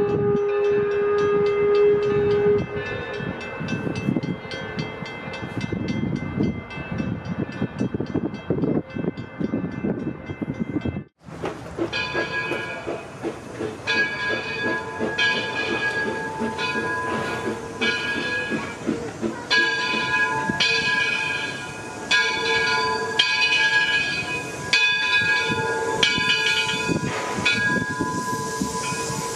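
Steam locomotive running with chuffing exhaust and steam hiss, a whistle tone ending about two seconds in. The sound cuts out abruptly about eleven seconds in, then returns with high ringing tones that come and go every second or two.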